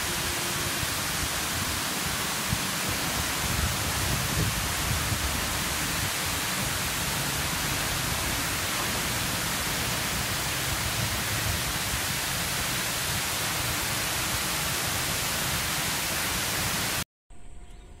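Water rushing over a barrage spillway, tumbling white down the concrete below the sluice gates: a loud, steady rush that cuts off suddenly near the end.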